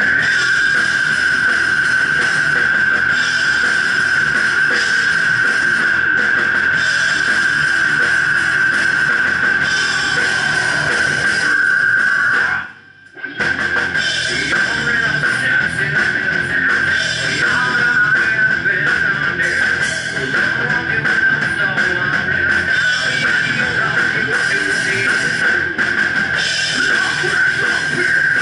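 An alternative metal band playing loud: electric guitars, bass guitar and drum kit. About halfway through, the whole band stops dead for half a second, then comes back in.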